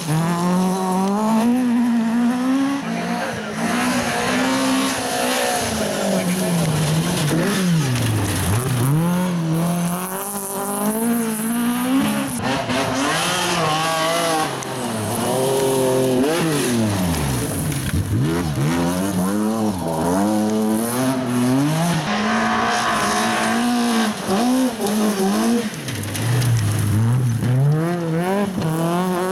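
Two-wheel-drive rally cars on a gravel stage, their engines revving hard, the pitch climbing and dropping again and again as they brake, shift and accelerate through a corner. Under the engines is the hiss of tyres sliding and spraying gravel.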